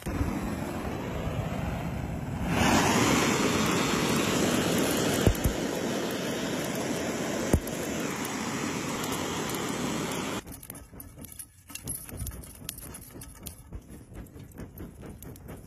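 A gas torch jetting a steady rushing hiss onto lump charcoal to light it, growing louder about 2.5 s in, with two short knocks, then shut off suddenly about 10 s in. Faint crackling and ticking from the lit coals follows.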